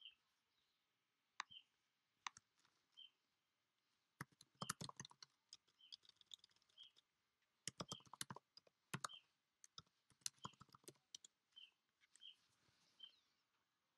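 Faint bursts of rapid clicks, typing on a computer keyboard, starting about four seconds in after a few single clicks. A small bird chirps a short high note about once a second.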